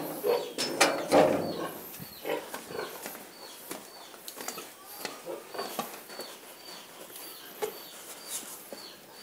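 Farm animal sounds: a few louder calls in the first two seconds, then a short high chirp repeating about two or three times a second.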